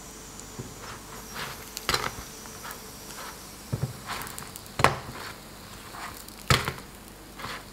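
Flatbreads being flipped on an oiled electric griddle with silicone tongs: several sharp taps and slaps as the tongs and breads meet the hot plate, over a faint steady sizzle.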